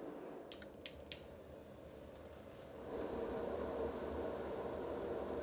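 A plastic spatula clicks against a porcelain dish of sulfur powder three times in the first second or so. About three seconds in, a steady hiss starts: a gas torch flame playing on the sulfur, which is melting and burning.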